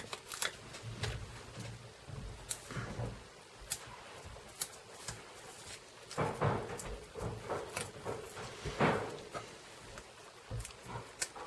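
Scattered light taps and clicks of paper and cardstock being handled on a craft table, with two short rustles about six and nine seconds in.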